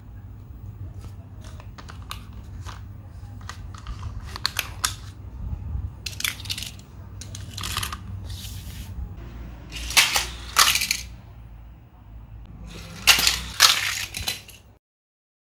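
Irregular plastic clicks and clacks of a Hot Wheels Trick Tracks dinosaur-skull trap and a die-cast toy car being handled and set into the jaws. The sharpest clacks come about ten seconds in and twice near the end, over a low steady hum.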